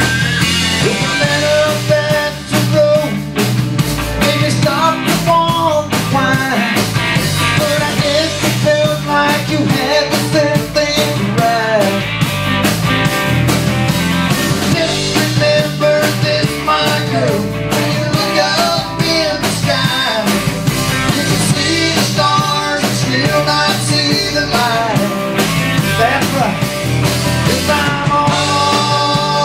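Live rock band playing with electric guitars, electric bass and a drum kit, in a steady driving beat.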